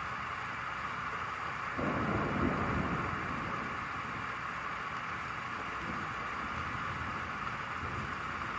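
Steady rain falling, with a low rumble of thunder that swells about two seconds in and dies away over a second or so.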